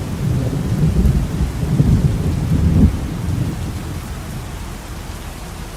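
Thunder rumbling over steady rain: a loud rolling rumble for about three seconds that then fades, with the rain hiss running on until it cuts off suddenly at the end.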